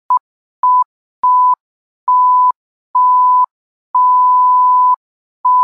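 Electronic beep tone, a single steady pitch, sounding seven times with short silences between, each beep longer than the one before, from a brief blip to a long held beep near the end.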